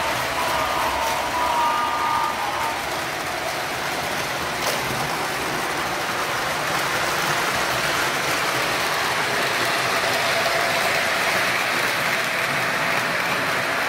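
O scale model trains running around the layout: a steady rolling rumble of wheels on the track and the hum of the locomotive motors, with a faint steady tone over it for the first couple of seconds.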